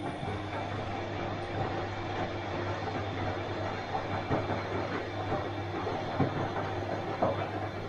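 Bosch washing machine running: a steady motor hum under a rushing noise, with scattered light knocks.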